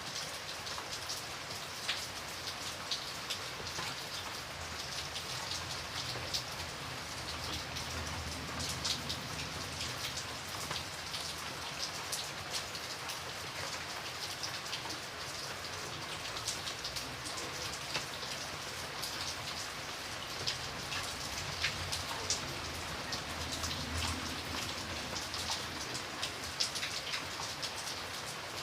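Steady rain with many individual drops ticking and pattering on a surface, over a soft low rumble that swells briefly twice.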